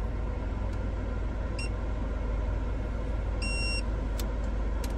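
Proton X70 climate control panel giving button-press beeps: two short beeps, then a longer one a little past three seconds in, over a steady cabin hum.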